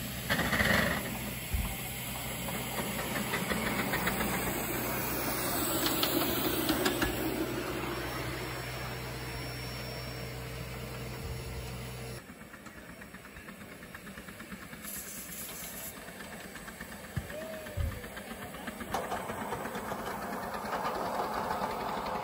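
5-inch gauge live-steam model of a Highland Railway Loch Class 4-4-0 hissing steam as it pulls away and runs along the track, with a loud burst of steam in the first second.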